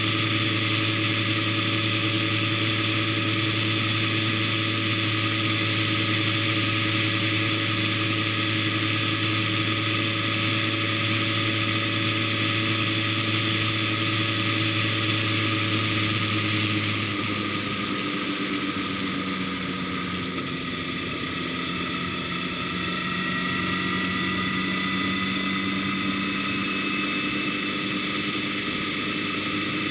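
Vehicle engine running at a steady speed while driving, with a high hiss over it. About seventeen seconds in the engine note drops and it gets quieter, and a few seconds later the hiss cuts off suddenly.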